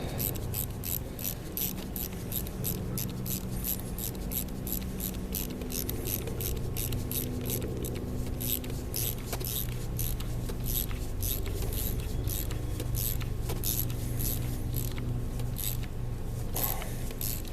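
Ratchet wrench clicking steadily, about four clicks a second, as a bolt is run down, over a steady low hum.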